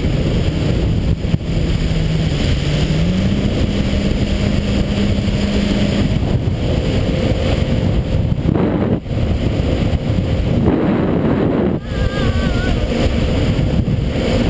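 WaveRunner personal watercraft's engine running underway, its pitch rising about three seconds in, under a heavy rush of wind and water on the microphone.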